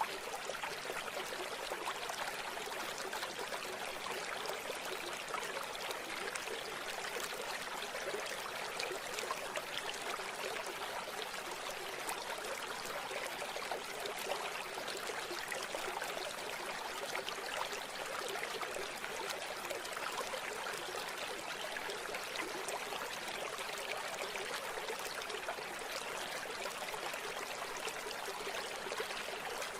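River water flowing and trickling steadily over stones, a continuous babbling rush with small splashes.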